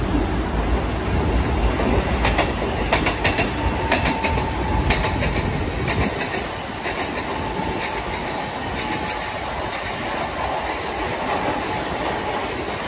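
Mumbai suburban electric local train running along the track: a steady rumble and rush of the moving coaches, with sharp clicks of wheels over rail joints, thickest between about two and five seconds in. The deep rumble eases a little after about six seconds.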